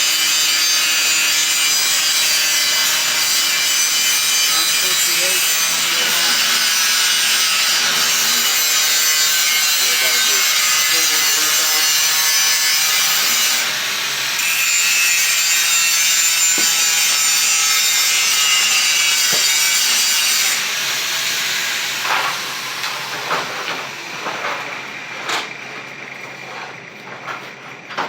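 A power tool working metal in a fabrication shop runs steadily with a harsh whine for about twenty seconds, easing off briefly about halfway through, then stops. Scattered knocks follow.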